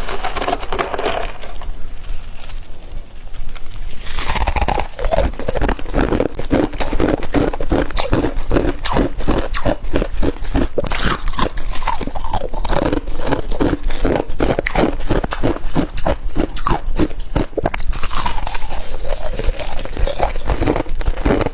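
Flaky freezer frost being crunched and scraped in quick, dense strokes, softer for the first few seconds and then a steady run of crisp crunches.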